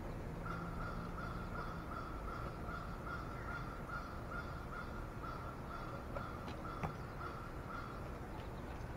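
A crow cawing in a fast, even run of same-pitched caws, about two a second, with one sharp knock about seven seconds in.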